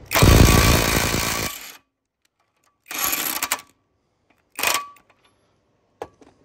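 Teccpo half-inch cordless impact wrench hammering in reverse for about a second and a half to break loose a bolt torqued to 225 ft-lb, then two short bursts of the wrench.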